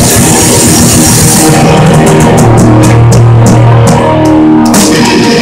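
Live rock band playing loud, with distorted electric guitars and a drum kit. About a second and a half in, the cymbals drop away, leaving held guitar notes and evenly spaced drum hits. The full band crashes back in near the end.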